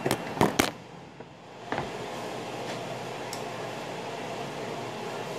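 Handling knocks as the phone is moved and set down: three sharp knocks in the first second and one more just before two seconds in. After that comes a steady, muffled room hum.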